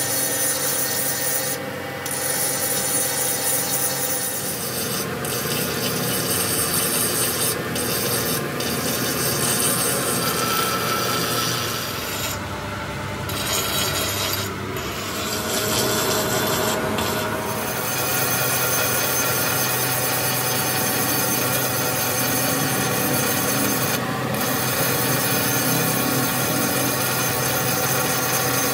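Abrasive work on metal: a continuous rasping, scraping noise that eases off briefly about halfway through.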